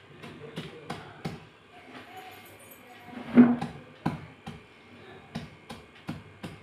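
Wet slate pencil pieces crushed under a hand-held stone on a stone countertop: irregular sharp crunches and clicks, with one louder crunch about three and a half seconds in.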